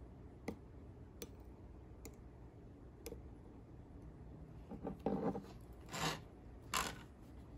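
Faint light clicks of a dip pen tapping the rim of a glass ink bottle while it is dipped, then a few louder, short brushing and rubbing sounds as the hand and pen move onto the notebook paper.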